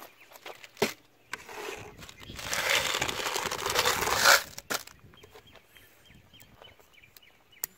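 A hand rummaging in a cardboard box of cartridges, the rounds rattling and the box rustling for about two seconds, followed by small metallic clicks as rounds are loaded into a single-action revolver.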